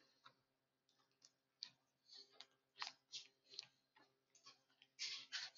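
Near silence with faint, scattered light clicks and taps, a few a second, with a slightly louder cluster near the end.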